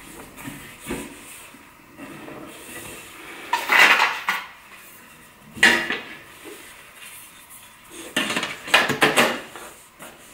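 Thin sheet-steel drawer panels of an IKEA Helmer unit clattering and scraping as they are handled and fitted together, with three louder bouts of metallic clanking.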